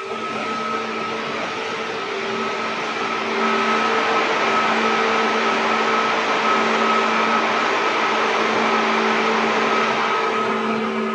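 205 series electric train running at speed: steady rolling noise with several steady humming tones, growing louder about three seconds in and then holding steady.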